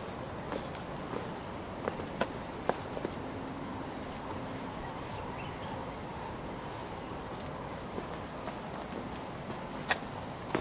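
Steady high-pitched chorus of insects in the woodland, with a few light footsteps on concrete steps.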